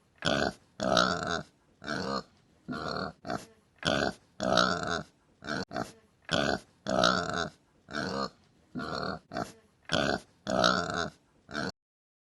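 Pig grunting, a rapid series of short grunts and oinks, one or two a second, stopping abruptly near the end.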